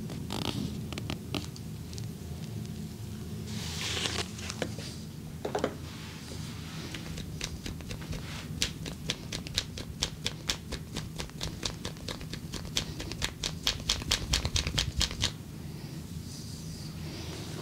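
Massage cracking sounds: in the middle comes a dense run of sharp, crisp cracks, several a second, after a couple of softer rubbing swishes, over a steady low room hum.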